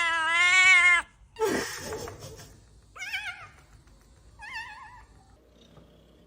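Domestic cat's long, loud, drawn-out meow that cuts off about a second in, followed by a short noisy rustle and then two short meows with a wavering pitch.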